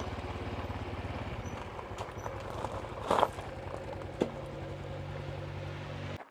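Honda CT125's single-cylinder four-stroke engine ticking over at low revs in a quick even beat, with two short clunks about three and four seconds in. The sound cuts off abruptly just before the end.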